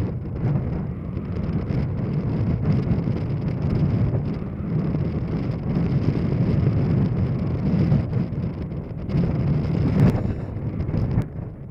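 Wind buffeting the microphone: a loud, gusty low rumble that swells and eases, with a brief knock about ten seconds in.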